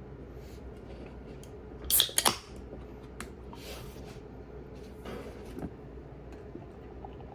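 Light handling noises, a few clicks and knocks of small objects, with a quick cluster of sharp clicks about two seconds in, over a steady low hum.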